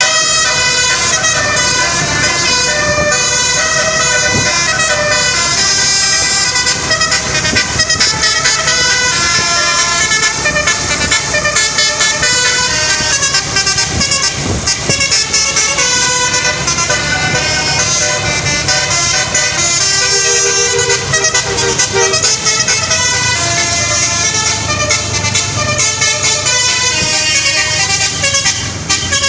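Basuri musical bus horn playing a tune: a set of pitched air-horn tones stepping from note to note without a break.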